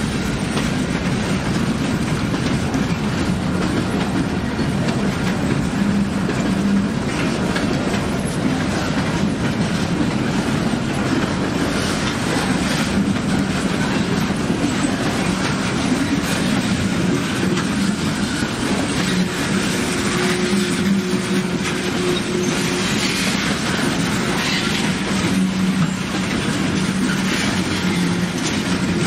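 Freight train rolling past close by: a steady rumble of wheels and cars, with a continuous clatter of wheels over the rails.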